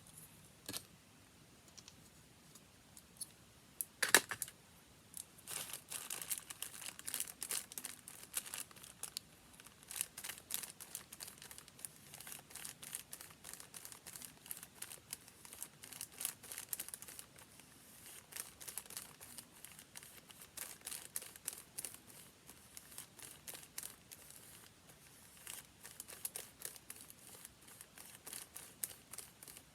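A sharp tap about four seconds in, then paper crinkling and rustling in quick, irregular crackles as it is handled.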